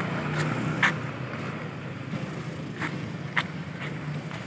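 Outdoor background of distant road traffic, a steady low hum, with a few short sharp clicks about a second in and again around three seconds in.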